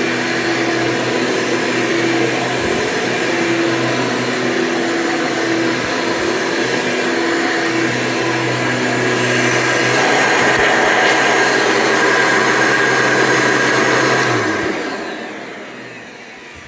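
Hoover Convertible upright vacuum cleaner's motor and fan running steadily with a whirring hum, getting a little louder about ten seconds in, then switched off and winding down near the end, its pitch sliding down as it slows.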